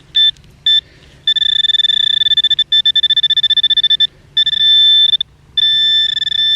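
Handheld metal-detecting pinpointer probe beeping on a target: two short beeps, then a loud fast-pulsing buzz from about a second in, broken by short gaps into two longer steady tones.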